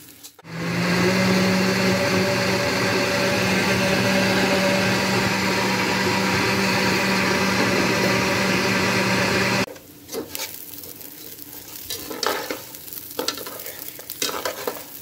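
KitchenAid countertop blender running steadily at one speed, blending water with onion, garlic and salt; it starts about half a second in and cuts off abruptly near ten seconds. After that, a metal spoon stirs and scrapes rice frying in a nonstick pan, with light clicks.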